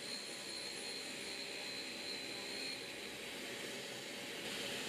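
Drill-bit grinder's cup wheel running with a steady motor hum while the tip of a 10 mm drill is ground against it. A thin high whine from the wheel contact lasts for the first two to three seconds, then fades. This is the grinding of the primary relief facet of a four-facet point.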